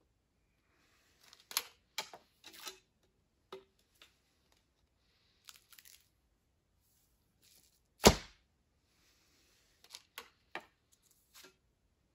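A traditional recurve bow shot with a thumb-ring release: one sharp crack of the bowstring and arrow about eight seconds in. Scattered small clicks and rustles come before and after it as the next arrow is handled and nocked.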